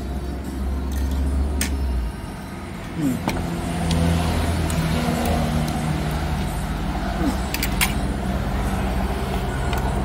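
Steady low rumble and hum of a running motor vehicle, easing briefly about two seconds in and building again a second or two later, with a few faint clicks.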